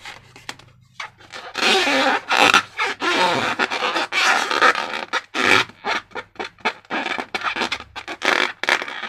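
Hands working slime and transparent balloons: a dense run of sticky, crackling clicks and rustling squishes, starting about a second in.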